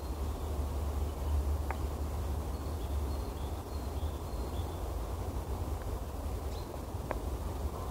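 Steady low background rumble, with a few faint high-pitched chirps around the middle and two sharp clicks, one about two seconds in and one near the end.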